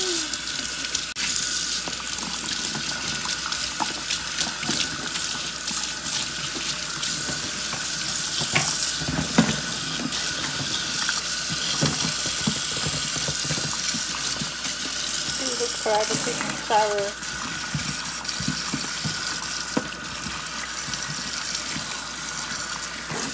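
Kitchen tap running a steady stream of water into a stainless steel sink and onto live rock crabs, with a few brief knocks about nine seconds in.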